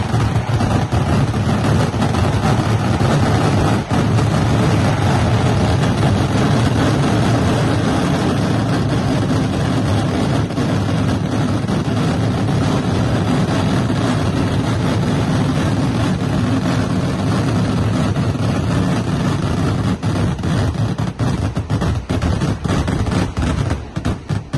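Fireworks barrage of firecrackers going off so fast that the bangs merge into one continuous crackling rumble, thinning into separate bangs near the end.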